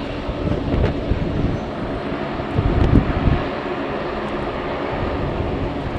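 Strong wind gusting across the microphone, loudest about three seconds in, over a steady low rumble of jet aircraft noise.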